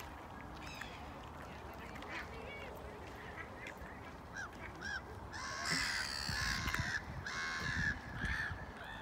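Waterfowl calling on a lake: scattered short honking calls, then a loud run of honks and quacks from about five and a half to eight seconds in.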